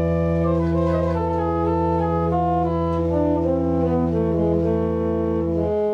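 Pipe organ played from its console: a low bass note held under chords whose upper notes move from one to the next, all released together just before the end.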